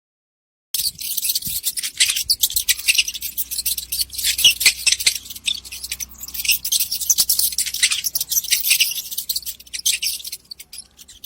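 Mice squeaking and chittering in a dense, rapid run of high-pitched squeaks. It starts abruptly about a second in and cuts off near the end, with a faint low hum underneath.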